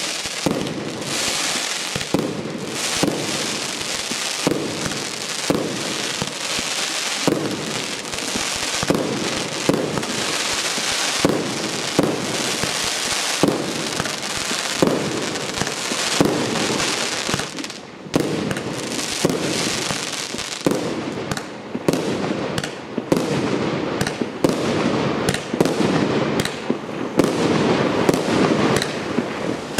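Pyro-Cascade 'Artillerymen' PKU895 consumer fireworks cake firing: a run of shots over continuous crackling from the bursts. Just past halfway the shots come quicker and sharper.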